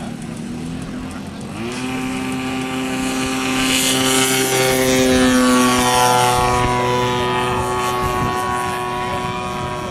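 Radio-controlled model airplane's propeller engine running. It revs up about two seconds in and grows louder to a peak near the middle, then fades a little with its pitch sinking slightly as it passes.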